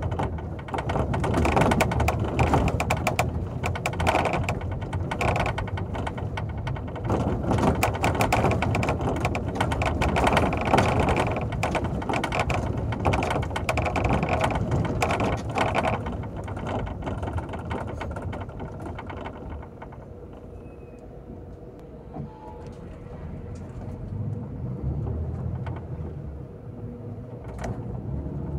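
Rattling and clattering of a moving bus's interior over a low engine rumble, with a faint steady tone. The rattling is dense for about the first sixteen seconds, then eases and grows quieter.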